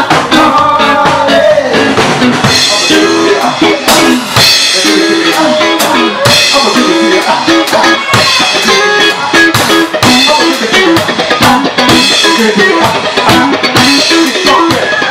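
Live rock band playing loudly: a drum kit driving a steady beat with cymbal crashes, over electric guitar and bass guitar.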